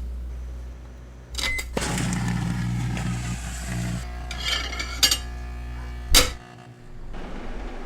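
Microwave oven hum dying away, then a few seconds of clattering and crackling from something in the oven, with two sharp clicks about five and six seconds in.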